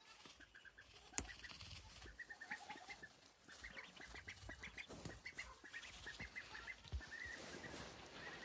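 Ducklings peeping: many short, rapid high peeps, with a couple of sharp knocks about a second in and near the end.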